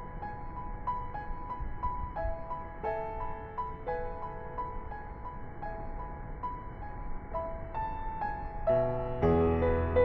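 Background piano music: a gentle figure of repeated single notes, with fuller, louder chords and a low bass coming in near the end.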